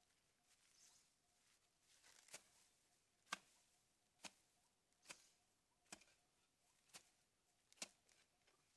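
Faint, sharp knocks evenly spaced about one a second, starting about two seconds in, over a faint steady tone.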